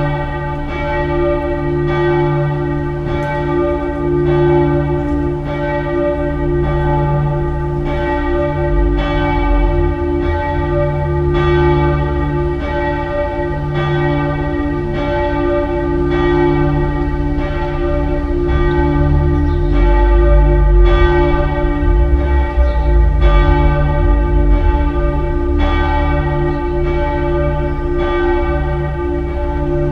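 Bells of the Frauenkirche Dresden ringing together in a peal: several swinging bells struck over and over, about once a second, their strikes overlapping over the steady hum of the deeper bells.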